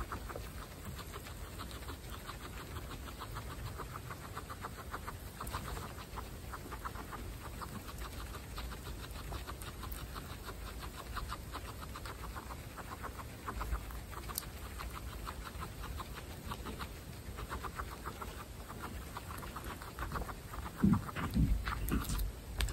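Guinea pigs munching fresh cut grass, a fast steady run of small crunchy chews. Near the end a few louder, lower sounds break in.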